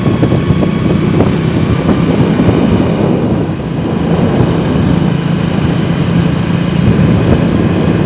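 Steady engine hum and road noise from the vehicle carrying the camera as it travels along a paved road, with wind rushing over the microphone.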